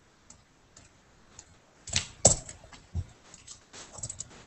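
Scattered clicks and taps of a computer keyboard and mouse: faint at first, then a cluster of louder, sharper clicks from about two seconds in.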